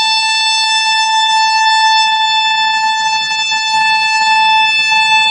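Horn of an approaching electric locomotive hauling an Indian goods train, held as one long, steady, high-pitched note.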